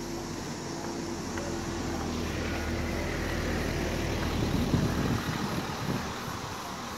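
A car comes up from behind and drives past at low speed, its engine hum growing louder to a peak about five seconds in, then easing off.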